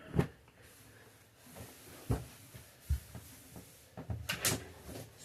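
A few light, scattered knocks, the first just after the start and two more about two and three seconds in, then a brief rustle near the end.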